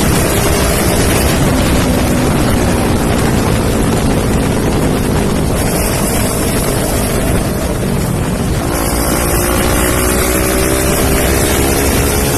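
Kawasaki Ninja 400 parallel-twin with an Akrapovic exhaust running under way, its exhaust note mixed with heavy wind noise on the microphone. About two-thirds of the way through the engine note changes and then climbs steadily.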